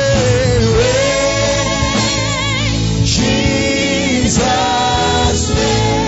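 Gospel worship song sung live by a lead singer with a backing choir, long held notes with vibrato.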